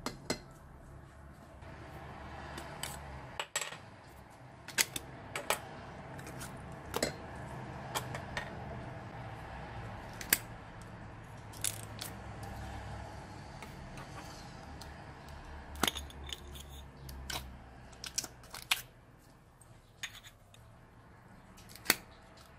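Small plastic slime containers being opened by hand: capsule shells and tub lids clicking and snapping, in irregular sharp clicks over a low steady hum.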